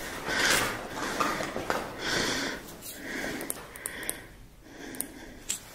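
A man's heavy breathing close to the microphone, a series of breaths in and out roughly a second apart, with a few small handling clicks.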